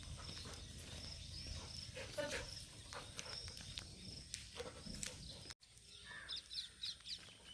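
Outdoor background noise with repeated high chirping and scattered soft rustles or steps. The sound cuts out abruptly about five and a half seconds in, then quieter chirping goes on.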